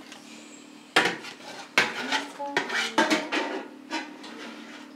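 Metal ladle and aluminium pot clinking and scraping against each other, a run of sharp knocks with brief metallic ringing, as cheese curd is handled into a draining cloth. A faint steady hum lies underneath.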